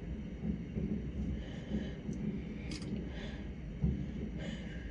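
Far-off fireworks booming as a low, continuous rumble, with a few short crackles and one sharp crack about midway.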